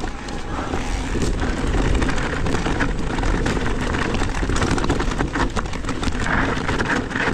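Cube Stereo Hybrid 160 e-mountain bike ridden down a rough trail. Tyres rumble over dirt and roots, with a steady stream of rattles and knocks from the bike.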